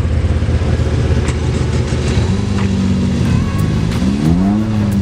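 Car driving, a steady low drone from the engine and road, with a pitched sound that rises and falls about four seconds in.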